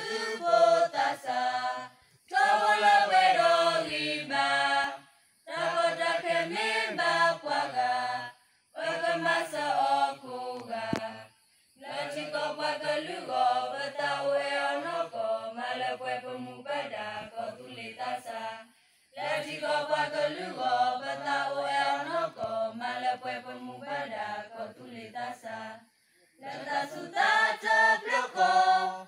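A group of men and women singing together without instruments, in phrases a few seconds long with short pauses for breath between them.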